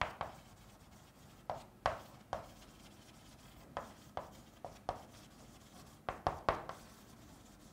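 Chalk writing on a blackboard: a string of short, irregular taps and scrapes as a line of handwriting goes up.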